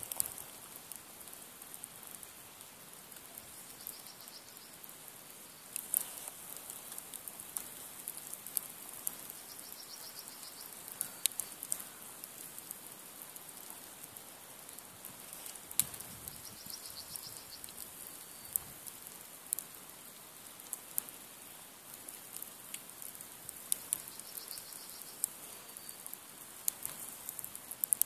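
Log campfire, a nodya of two long logs stacked one on the other, burning low and crackling with scattered sharp ticks and pops over a faint steady hiss. A couple of louder pops come about six and sixteen seconds in.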